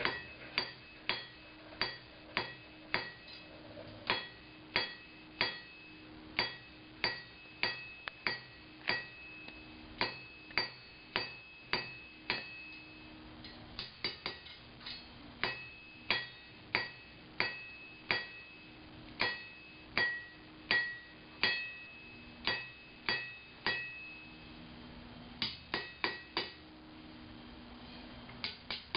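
Hand hammer striking hot steel on an anvil at a steady pace of about two blows a second, each blow followed by a short metallic ring, with two brief pauses: forging, drawing out a taper on the bar.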